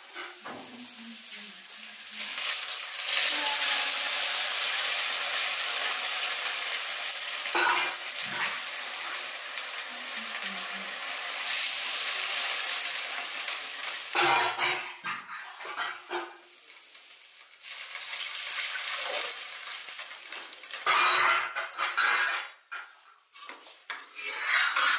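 Water poured into a hot kadhai of frying food, sizzling steadily for about ten seconds. After that a metal ladle clatters and scrapes against the kadhai as the food is stirred.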